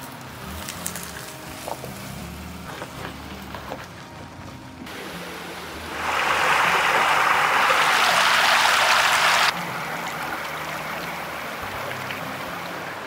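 Stream water rushing over rocks. It comes in suddenly and is loudest for about three seconds in the middle, stops abruptly, and then settles to a steadier, softer flow. A few faint knocks and clicks in the first few seconds.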